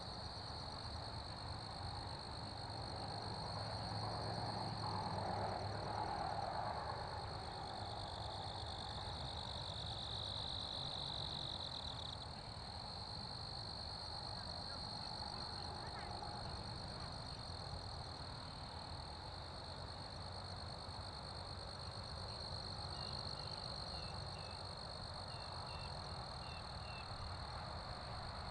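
Field ambience: a steady, high-pitched chorus of calling insects, over a faint low rumble, with a few short chirps near the end.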